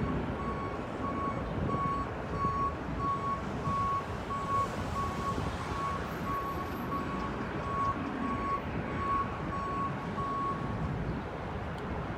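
A vehicle's reversing alarm beeps in an even, rapid series on one high pitch and stops near the end. A steady low rumble runs underneath.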